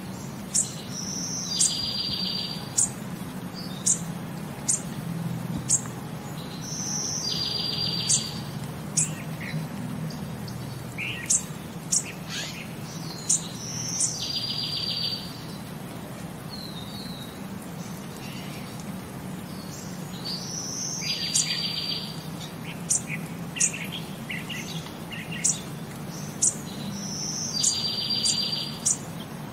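Birds chirping, with sharp high chirps and a short fast trill that repeats about every six to seven seconds, over a low steady hum.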